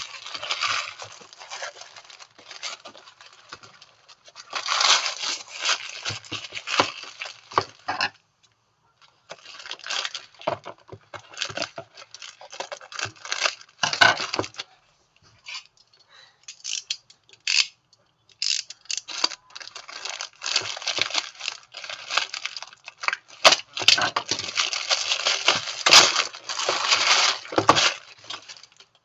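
Packaging and small hard plastic parts being handled during an unboxing: rustling, tearing and clattering in irregular bursts with short pauses, and sharp clicks and taps.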